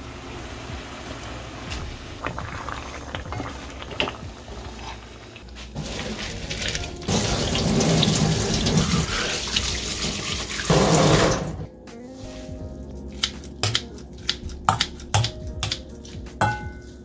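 Kitchen tap running water into a sink, gushing loudest for a few seconds in the middle and then turned off. A series of sharp knocks follows near the end.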